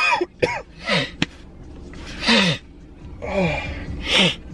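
A man's voice gasping and groaning in a string of short outbursts, each falling in pitch, mixed with sharp breaths. It is his reaction to snorting pre-workout powder up his nose.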